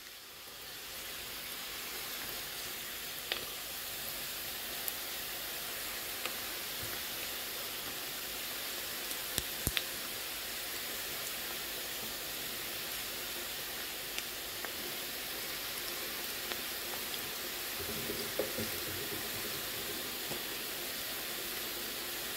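Sesame dough fritters deep-frying in a pan of hot oil: a steady sizzle and hiss, with a few sharp pops and crackles.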